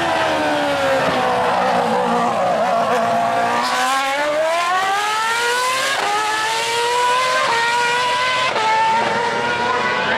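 Formula One car's engine at high revs, its pitch sagging and then climbing as the car accelerates away, with quick upshifts about a second apart in the second half: each one a sudden drop in pitch followed by a fresh climb.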